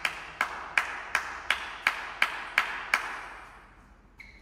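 Hand clapping in a steady rhythm, about three claps a second, echoing in a large hall, dying away about three seconds in.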